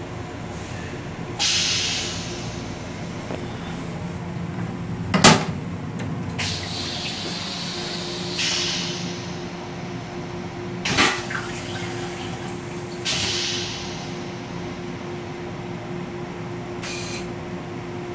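Running noise of an M7 electric railcar heard inside its small restroom: a steady rumble and hum, with several short hissing bursts every few seconds. Two sharp clunks, the louder about five seconds in and another about eleven seconds in, as the hinged toilet seat is lifted and comes to rest.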